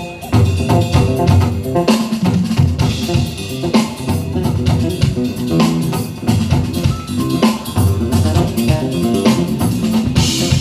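Live jazz band playing an instrumental, with electric bass guitar lines and drum kit most prominent.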